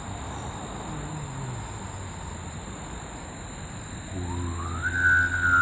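A siren starting its wail about four seconds in: one tone rising quickly, then slowly falling, over a steady low hum.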